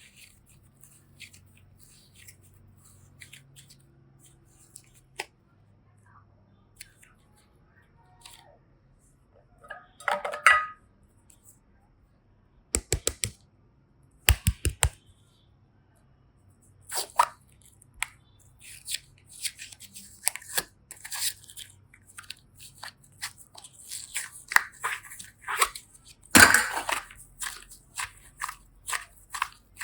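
Clay and slime being squeezed and worked by hand, giving close crackling and sticky squishing, with two quick runs of sharp clicks about halfway through and one louder crackle near the end.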